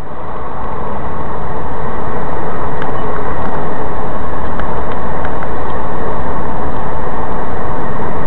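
Steady road and engine noise picked up by a dashcam inside a moving vehicle on a snowy highway, fading in over the first couple of seconds, with a few faint clicks over it.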